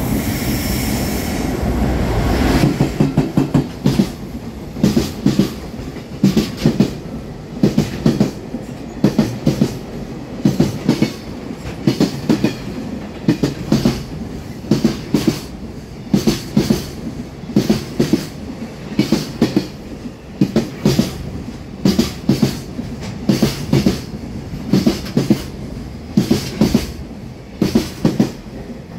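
A JR Freight EF210 electric locomotive runs past for the first couple of seconds. After it, the wheels of its container wagons clack over the rail joints in tight groups of quick knocks, about one group a second, in a steady clickety-clack as the long freight train goes through.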